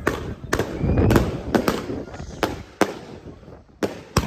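Fireworks firing a rapid string of sharp bangs, roughly one every half second at first and thinning out toward the end, with a low rumble under the first second.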